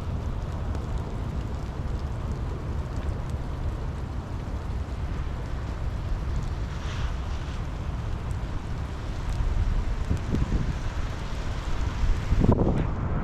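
Steady rain with a heavy low rumble of wind on the microphone, and a louder rush near the end.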